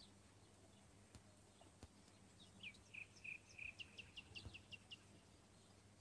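Near silence with faint bird song: a few slurred whistled notes, then a quick run of short high chirps, about six a second, over a faint low hum.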